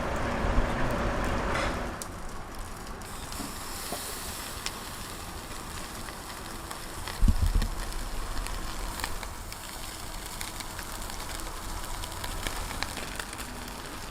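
Cherry blossom trout sizzling and crackling on a grill, with scattered small pops. A single loud thump about seven seconds in.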